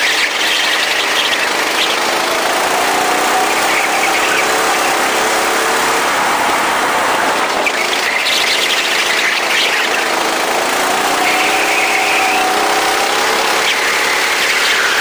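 Go-kart engine running, its pitch rising and falling as the revs change, under a loud steady rushing hiss.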